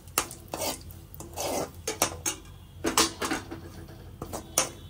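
A spoon scraping and rasping against a pan in irregular strokes as semolina (rava) goes into hot ghee for suji halwa.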